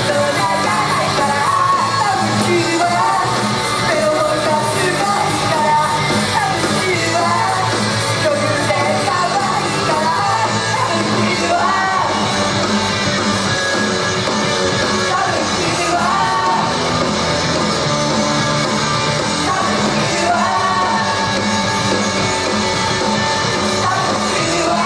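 Japanese idol group performing live: women's voices singing into microphones over loud rock music.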